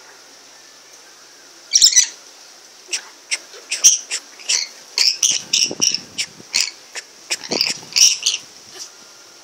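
Pet lories chattering: a quick burst of calls about two seconds in, then a long run of short, high calls that carries on until near the end.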